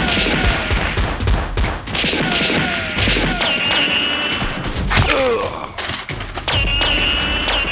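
Gunfire sound effects: bursts of rapid shots, with falling whistling tones between them.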